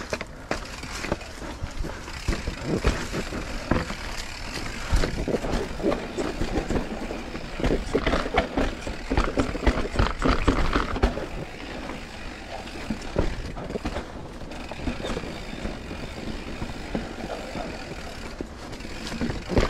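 Mountain bike ridden over a rough dirt trail: tyres on the ground, with irregular clattering and knocks from the bike throughout.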